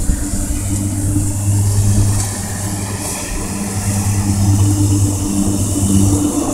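Steady low motor hum that holds one pitch, over an even background hiss.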